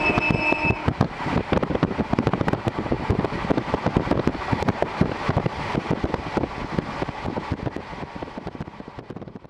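JR Hokkaido Series 711 electric train running, heard through an open window. The wheels rattle and clatter on the rails, with a steady high tone for about the first second. The sound fades out near the end.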